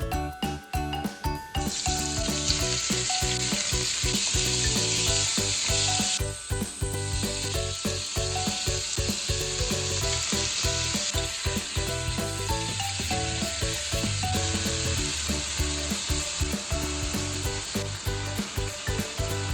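Food sizzling and frying in a hot pan during a stir-fry. The sizzle starts about a second and a half in and drops briefly about six seconds in, as if ingredients were added or stirred. Light background music plays under it.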